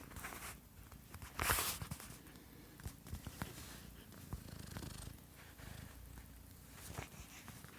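A domestic cat purring steadily, with a brief loud rustle about a second and a half in and a few soft clicks.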